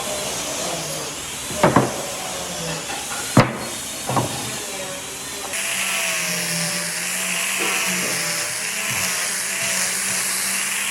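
Woodworking shop sounds: a few sharp knocks in the first half, then, after an abrupt change about halfway through, a power tool running steadily with a hiss and a slightly wavering whine.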